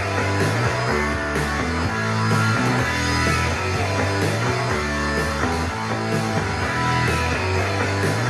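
Rock music with electric guitar and a steady bass line, played at full volume through a JBL portable Bluetooth speaker.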